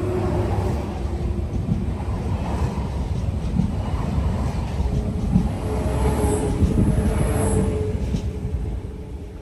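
A train running past on the track: a steady rumble of wheels and running gear with a faint motor hum, easing off near the end.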